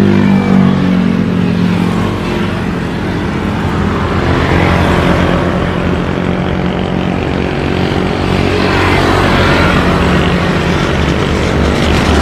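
Twin-engine widebody jet airliner on final approach, its engines making a steady low rumble with a hiss that swells and shifts as it comes in.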